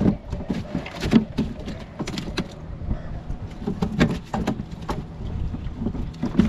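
Irregular knocks and rattles as a hand scoop net holding a freshly caught grey mullet is worked over a plastic fish crate and the fish is shaken out into it, the strongest knock about a second in, over a steady low rumble.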